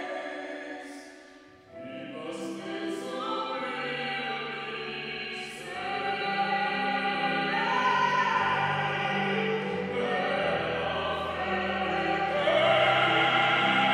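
Soprano and bass-baritone singing a sacred song together in classical style, with a brief pause about a second and a half in before the voices come back in and swell.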